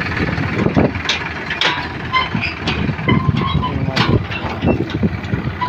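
Sonalika DI-734 tractor's three-cylinder diesel engine running, with irregular clattering and knocking from farm machinery throughout.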